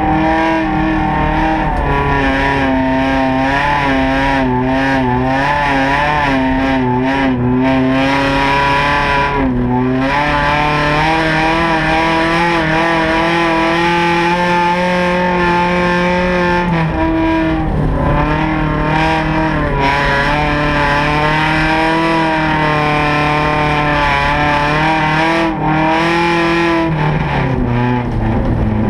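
Honda Civic ice racer's four-cylinder engine running hard, heard from inside the cabin. The revs waver up and down, dip briefly about ten seconds in, and fall near the end.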